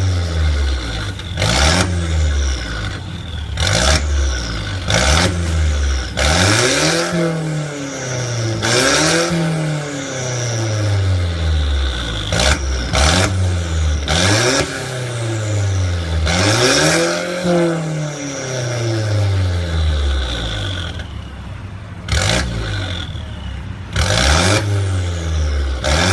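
Mercedes SLK 200's four-cylinder engine revved repeatedly through an aftermarket valved exhaust, each rev rising and dropping back within a second or two. Short harsh bursts sound through several of the revs.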